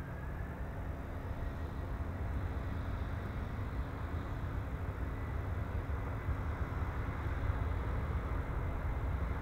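Airbus A321 airliner's twin jet engines rumbling as it rolls along the runway, growing steadily louder, with a faint high whine over the rumble.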